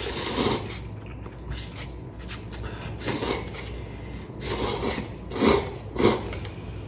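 A man slurps instant cup ramen noodles off chopsticks in about five short, noisy slurps, one at the start and the rest from about three seconds in.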